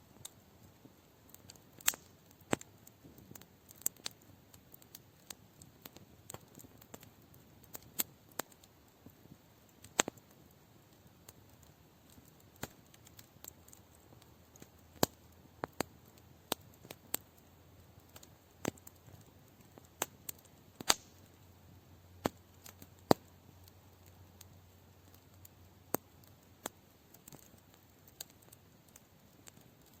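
Campfire crackling: wood snapping and popping in irregular sharp cracks, one or two a second, over a faint steady hiss.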